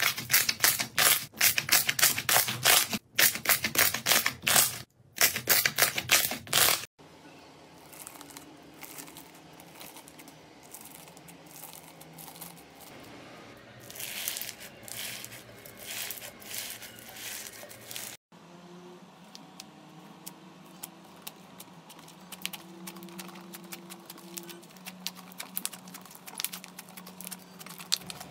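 Slime squeezed and kneaded by hand, giving sticky clicks and pops. For the first seven seconds a large mass of glossy green slime is worked, with fast loud popping. After a sudden cut it turns to quieter crackling from bead-filled slime, and after another cut about eighteen seconds in, to faint fine clicks as fingers press into a soft blue slime.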